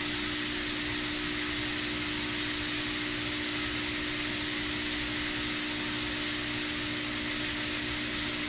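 A 1,000-watt fog machine running, a steady hiss of fog jetting out with a steady hum underneath.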